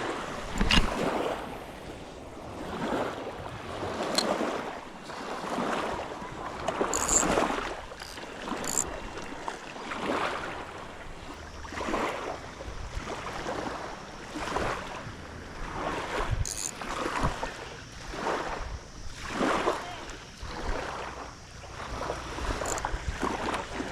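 Small waves washing in and out on the shoreline in a loose rhythm of about one swell every one to two seconds, with wind on the microphone.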